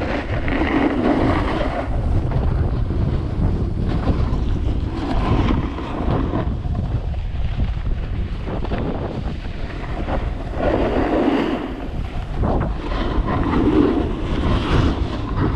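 Wind rushing over the microphone during a ski run, with a swelling scrape of skis across the snow every few seconds.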